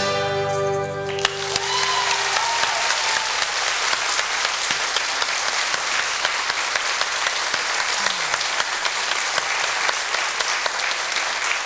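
A band with accordion and flute ends on a held chord. About a second in, an audience breaks into applause that carries on at a steady level.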